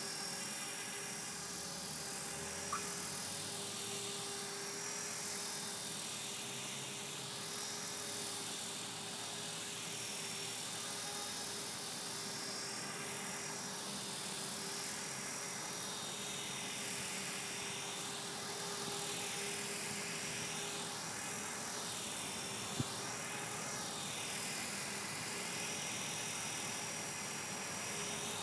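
E-flite Blade 450 electric RC helicopter hovering: a steady whine from its electric motor and spinning rotors, wavering slowly as it drifts. A single sharp click comes about three quarters of the way through.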